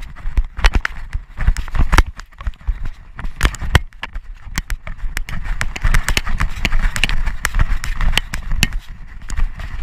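A Doberman pinscher running on grass with a camera strapped to her body: fast, irregular thumps and knocks from her footfalls and the jolting mount, over a low rumble of wind and rubbing on the microphone.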